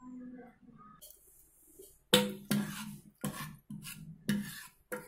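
Steel ladle stirring dal in a pressure cooker pot, knocking against the metal side about twice a second from about two seconds in, each knock ringing briefly. It opens with a faint pour of tamarind water into the dal.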